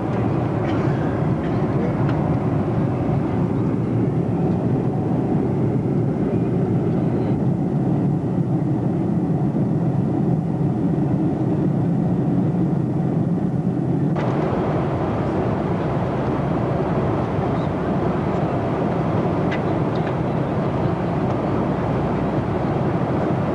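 Steady roar of a Boeing 747-200 airliner's jet engines and airflow. About 14 seconds in the sound turns abruptly brighter and hissier.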